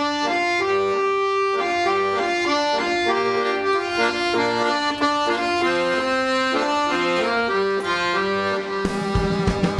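Piano accordion playing a lively stepwise melody of held reedy notes over a lower accompaniment. Near the end, sharp percussive thumps join in.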